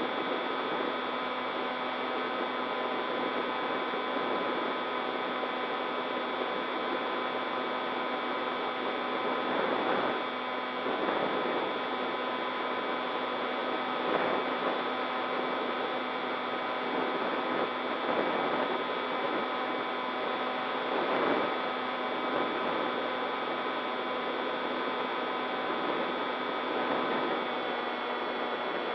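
RC model plane's motor and propeller heard from the onboard camera in steady cruise: a steady hum of several fixed tones over rushing air, with a few brief swells of wind noise.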